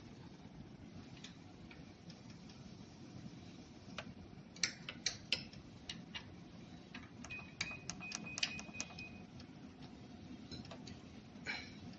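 Scattered sharp clicks and taps, about a dozen of them between four and nine seconds in, then a few more near the end, with a brief high steady tone around eight seconds in.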